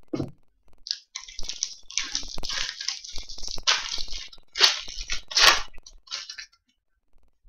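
A soft knock, then the foil wrapper of a hockey card pack crinkling and crackling in the hand as it is torn open, in irregular bursts for about five seconds.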